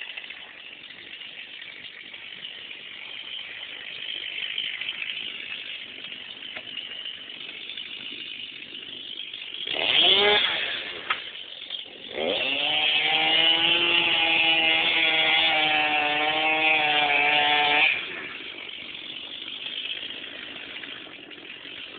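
Chainsaw revved briefly about ten seconds in, then held at full throttle for about six seconds, the pitch wavering slightly, before dropping back abruptly. A quieter engine drone fills the rest.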